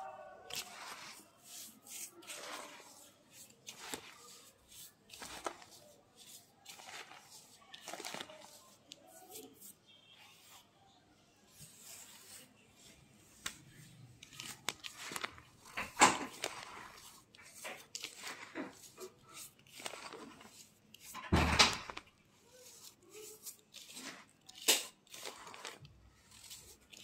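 Hands squeezing and crumbling kerosene-dampened naphthalene powder in a bowl: irregular soft crunching and crackling. A louder thump comes about two-thirds of the way through.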